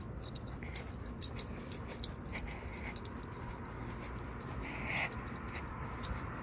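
Pit bull sniffing around on a leash, with short sniffs and its metal chain collar clinking now and then over a low background rumble. The strongest sniff comes about five seconds in.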